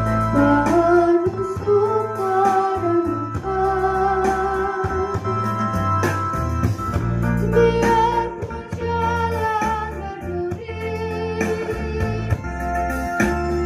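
A woman's voice singing a slow melody with vibrato through a microphone and loudspeakers, accompanied by an electronic keyboard holding sustained organ-like chords and bass notes.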